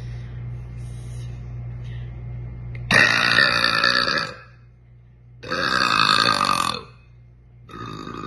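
A girl burping loudly three times, each burp long and drawn out, about a second apiece, with short pauses between them. A low steady hum comes before the first burp.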